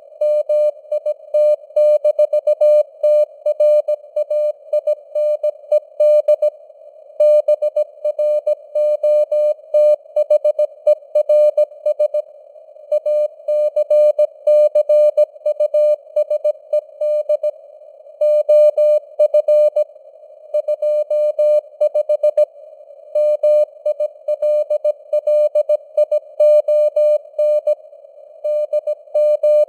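Morse code (CW) sent at 17 words per minute: a single steady tone keyed into dots and dashes. It sits over a narrow band of simulated radio receiver noise, with short pauses between words.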